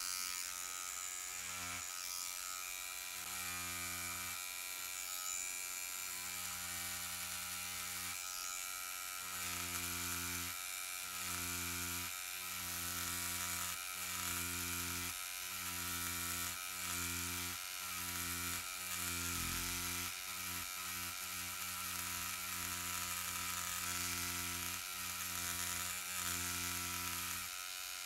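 Cartridge tattoo machine buzzing steadily at about 7 on its power supply, its small beveler cartridge tapping into cased leather. A deeper hum cuts in and out every second or so.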